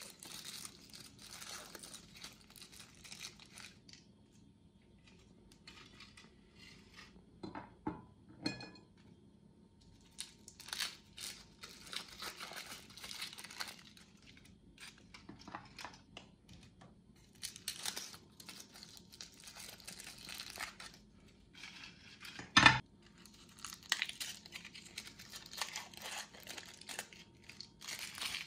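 Crinkly foil wrappers being peeled and torn off chocolate umbrella candies, in repeated bursts of rustling with short pauses between. There is one sharp knock about two-thirds of the way through.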